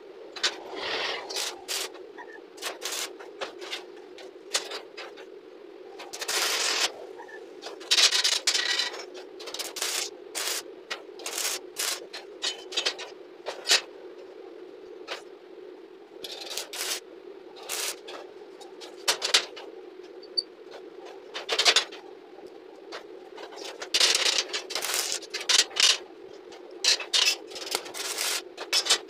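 Curled steel scroll pieces scraping and clinking on a concrete floor as they are slid and set into a steel grill frame: many short scrapes and knocks at irregular intervals, over a steady low hum.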